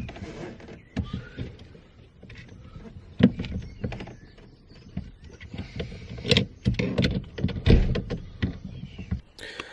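Irregular metallic clicks, knocks and scraping of hand tools and parts being worked at a car's steering column, while the steering hub bolt is tightened and the quick-release parts are fitted.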